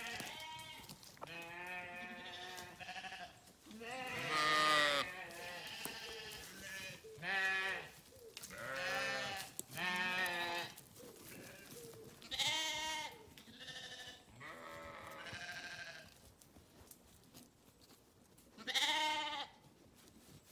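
A flock of sheep bleating: many wavering calls of about a second each, some overlapping, then a short lull near the end before one last loud bleat.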